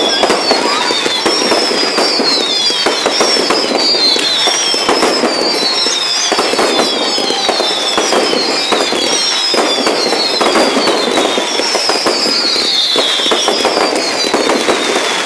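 Fireworks going off in a continuous dense crackle of bangs and pops, with a high whistle falling in pitch that repeats about once a second.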